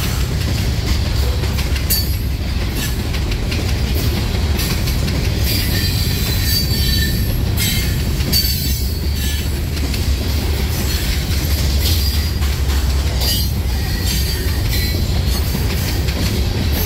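Freight cars of a Herzog rock train rolling past close by: a steady low rumble of steel wheels on rail, with short high-pitched wheel squeals every few seconds.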